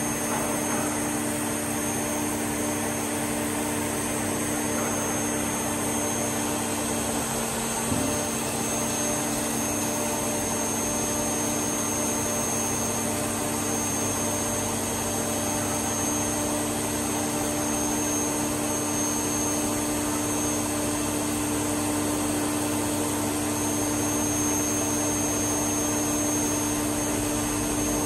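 Emco CNC turning centre running with a steady machine hum made of several held tones and a faint high whine. About eight seconds in there is a small knock with a short slide in pitch, and one of the hum's tones drops out for several seconds.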